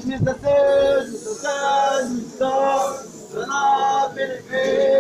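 Male voices singing in short phrases of about a second each, with brief pauses between them.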